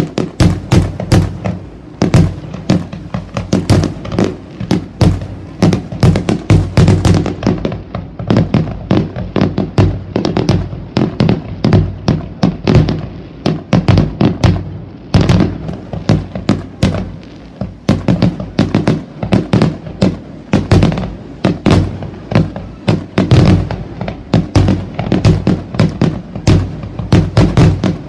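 Fireworks display going off in quick succession: a dense, unbroken string of sharp bangs and cracks, several a second, as aerial shells launch and burst.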